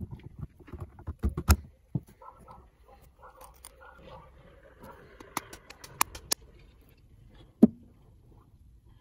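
Metal parts of a hand drill being handled during reassembly: scattered clicks and knocks as the frame, bevel gears and spindle are fitted together and set against the workbench. A sharper knock comes about a second and a half in, a quick run of clicks around six seconds, and another knock near the end, with soft rustling of hands between.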